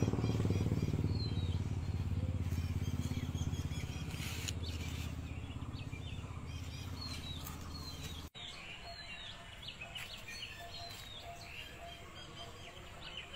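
A motor vehicle engine hums low and steady, fading away over the first eight seconds. The sound cuts out briefly about eight seconds in. Small birds chirp throughout, plainest in the quieter second half.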